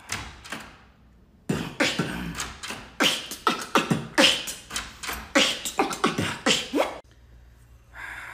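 Mouth beatboxing: a fast, rhythmic pattern of kick, snare and hi-hat sounds that starts about a second and a half in and stops abruptly about seven seconds in. A few soft clicks come before it.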